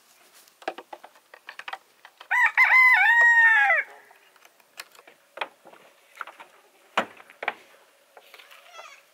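A rooster crows once, a cock-a-doodle-doo lasting about a second and a half and starting about two seconds in. Scattered light knocks and clatters come before and after it.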